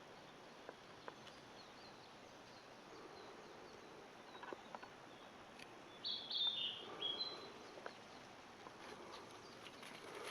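A small songbird sings a short phrase of clear notes stepping down in pitch, about six seconds in, over faint forest background noise.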